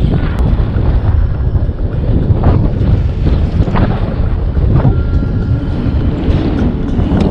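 Wind buffeting the microphone: a loud, steady, gusting rumble that fluctuates throughout.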